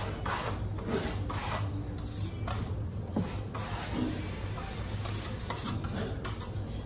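Steel trowel scraping over Marmorino lime plaster on a board in repeated strokes, several a second, as the plaster is spread and worked. A steady low hum runs underneath.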